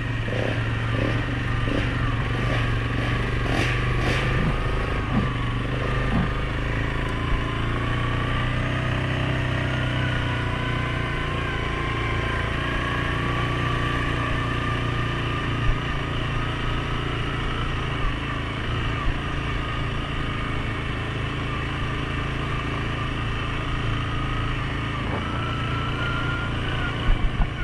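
Suzuki King Quad 750 ATV's single-cylinder engine running steadily under way on a trail, with a wavering whine that climbs a little near the end. A few knocks and rattles come in the first several seconds.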